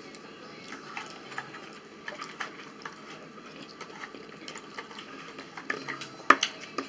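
Quiet eating sounds: scattered light clicks and scrapes of a fork on a plastic food tray and a spoon in a plastic cup, with one sharper click near the end.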